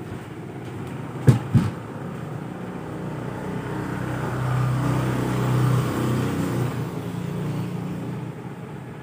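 Two sharp knocks in quick succession about a second in. Then a low motor drone swells and fades over several seconds, as a vehicle passing by does.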